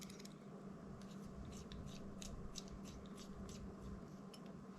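Faint, irregular light clicks and ticks of small plastic drone parts and tools being handled, over a faint steady hum.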